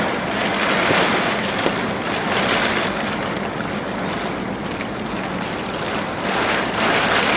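Heavy rain driven by strong wind: a steady rushing noise that swells and eases.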